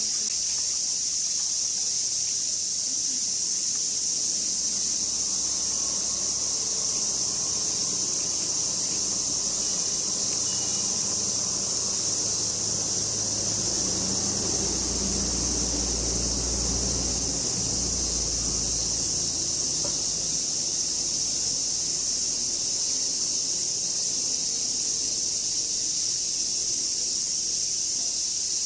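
Steady, high-pitched insect chorus chirring without a break. A low rumble swells up under it around the middle.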